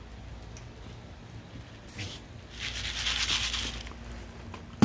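Greater roadrunner clattering its bill: a rapid dry rattle about a second long, starting about two and a half seconds in, answering a call to "speak". A sharp click right at the end.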